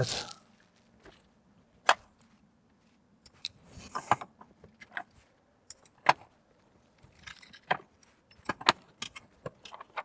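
Scattered sharp clicks and light taps at irregular intervals, some in quick little clusters, as thin electrical cables and a pair of metal scissors are handled on a wooden tabletop.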